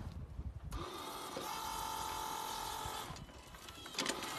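Electric hydraulic pump of a large remote-control excavator whining steadily from about a second in, dropping away near three seconds and starting again with a click near the end. A dull knock at the start.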